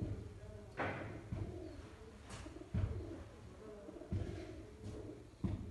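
Domestic pigeons cooing in repeated low wavering phrases, with several sudden low thumps.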